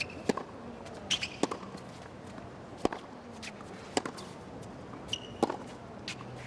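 Tennis rally on a hard court: sharp racket strikes on the ball about every one and a half seconds, with lighter bounces between and a few brief high squeaks, over a steady background murmur.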